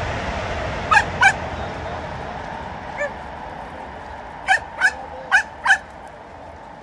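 Dogs giving short, high barks: two about a second in, one alone a little later, then four in quick succession, over steady background noise.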